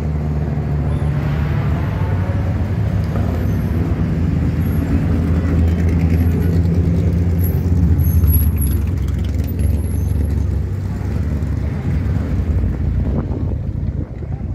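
Engines of several race cars revving and running as they drive one after another through a hairpin, with a steady low engine drone. The sound is loudest about eight seconds in.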